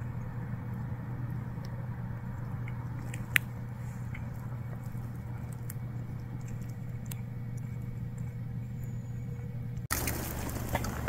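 A cat licking its fur while grooming: faint soft clicks over a steady low hum, with one sharper click a few seconds in. About ten seconds in the sound cuts to footsteps crunching on dry leaves.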